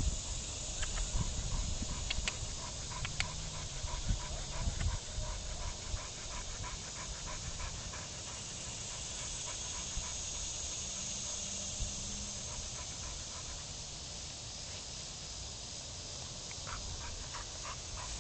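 Pit bull-type dog panting hard with its mouth open, in a steady rhythm, as it rests and cools down after excitement.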